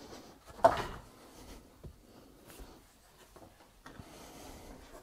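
A single sharp knock less than a second in, with a short rattle trailing after it, then a few faint small clicks.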